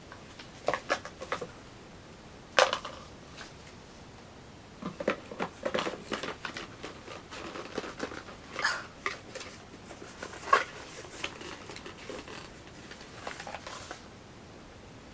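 Handling noise from unpacking a coffee grinder's box and paperwork: scattered clicks, taps and rustles, with sharper knocks about two and a half seconds in and again about ten and a half seconds in.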